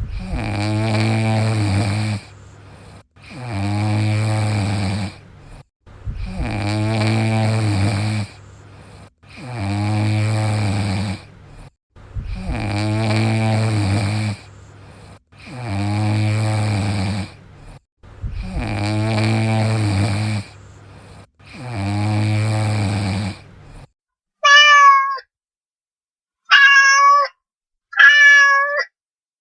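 A sleeping cat snoring: seven long, low, rasping snores, one about every three seconds. Near the end the snoring stops and three short, high calls follow.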